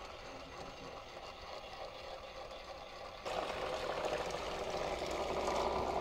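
Water churning and lapping around a small homemade river-cleaning boat as its small DC gear motors run the conveyor. The sound gets louder in a step a little over three seconds in.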